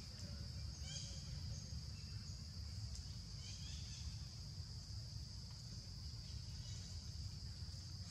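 Forest ambience: insects drone steadily at a high pitch over a low rumble, with a few short chirping calls about a second in and again around three and a half seconds.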